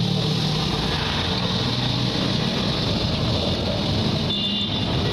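A motor vehicle's engine running steadily, an even low hum with no breaks.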